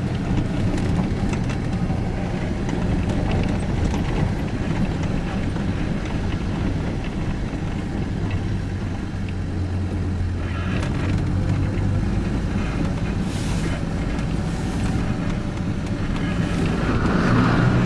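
Vehicle engine running with a steady low drone, heard from inside the cab while it drives along a rough dirt road, with road and tyre noise underneath.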